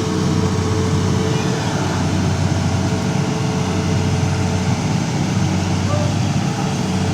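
Heavy diesel engine of an excavator running steadily at a constant speed.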